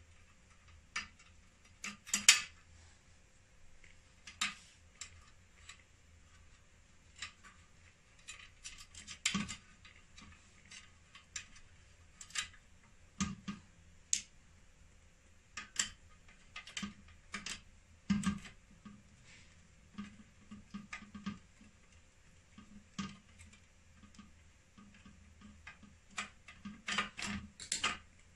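Irregular clicks and light metallic taps from hands and tools working on parts inside an opened inverter's metal chassis, fitting wires, screws and a circuit board. The clicks come in a quicker run near the end.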